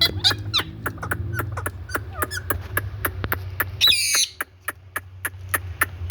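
Indian ringneck parakeet calling: a few short falling chirps at the start, then one loud harsh squawk about four seconds in. Under it run a steady low hum and a regular ticking about four times a second.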